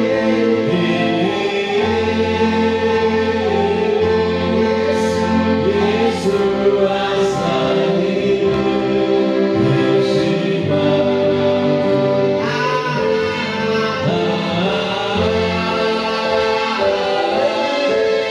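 Gospel music: a choir singing with instrumental accompaniment, in long held chords.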